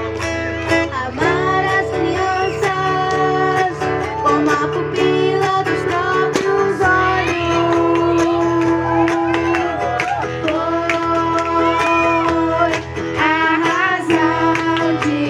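A girl singing a song in Portuguese into a microphone, with a man accompanying her on acoustic guitar. She holds some long notes.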